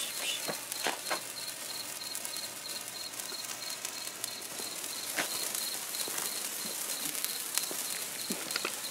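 Crickets chirping in a steady, even pulse, over the faint fizz of burning handheld sparklers, with a few sharp crackles.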